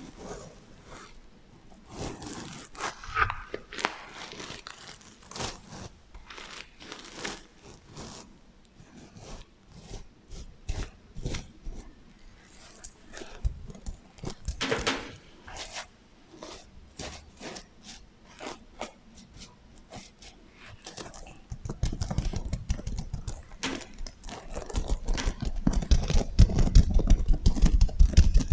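Sequins on a sequin heart pillow being brushed and flipped by fingers, with an echo effect: scattered scratchy clicks and rasps that give way, from about three quarters of the way in, to a denser, louder rubbing.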